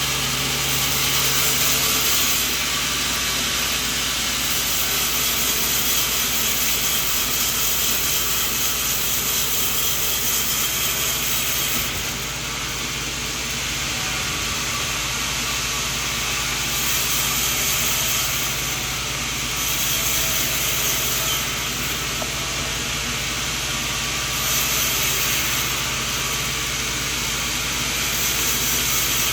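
Band sawmill running continuously, its steady motor hum under the hiss of the blade sawing coconut wood, the hiss brightening and dulling every few seconds.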